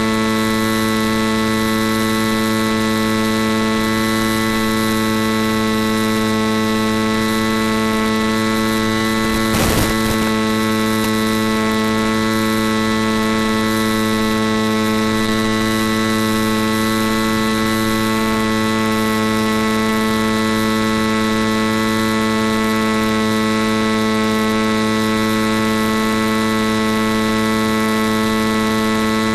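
Steady electrical hum with many evenly spaced overtones and a hiss of static, from the audio channel of an analog FPV video link. About ten seconds in there is a brief crackle of static.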